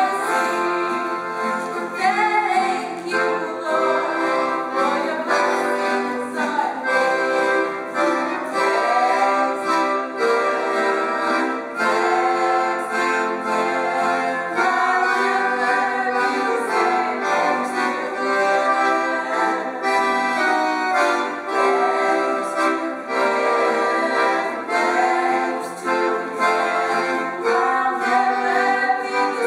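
Two women's voices, one young and one older, singing a song together to a piano accordion accompaniment.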